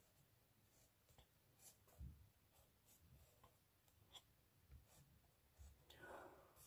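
Faint scratching of a graphite pencil drawing and shading on paper in short strokes, with a soft low thump about two seconds in.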